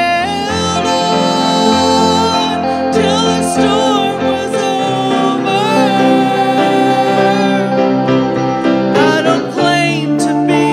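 A woman singing a worship song into a microphone, backed by electric guitar, with long held notes that waver in pitch.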